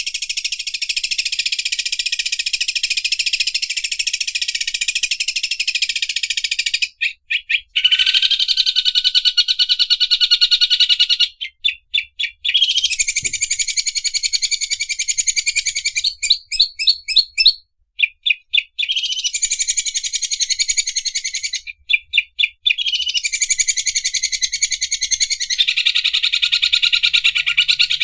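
Green leafbird (cucak ijo) singing its 'mesin obras' song, a fast, rattling, machine-like trill like an overlock sewing machine. It comes in long unbroken phrases lasting several seconds, broken four times by short runs of separate rapid notes.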